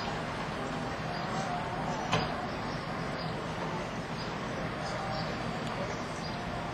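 Steady outdoor harbour ambience: a low rumble and hiss, with a sharp click about two seconds in and a few faint short high chirps.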